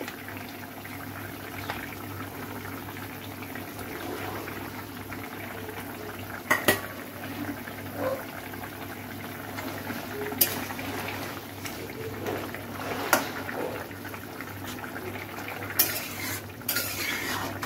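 Curry bubbling steadily as it simmers in a metal kadai. A few sharp metal clinks of a ladle against the pan, more of them near the end as the pot is stirred.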